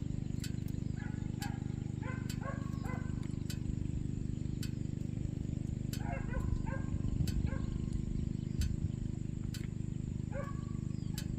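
Dogs barking and yelping in short clusters while fighting a wild boar, over a steady low hum and regular sharp clicks.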